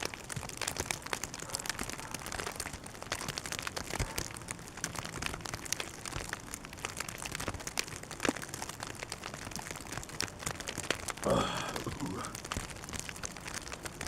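Constant fine crackling and rustling close to the microphone, many small ticks, with a short voiced grunt about eleven seconds in.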